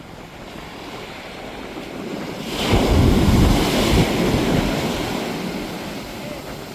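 Small waves washing on a beach, with wind on the microphone. About two and a half seconds in, a loud swell of rushing noise and low buffeting rises, then fades slowly.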